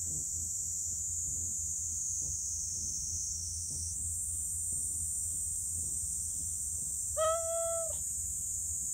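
Small calico cat giving one short meow of level pitch about seven seconds in, a contented meow while being stroked, over a steady high drone of insects.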